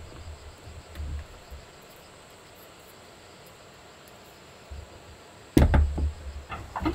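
Aluminium hot sandwich maker being handled: light soft handling noise, then a sharp metal clack about five and a half seconds in, followed by a few lighter clicks near the end.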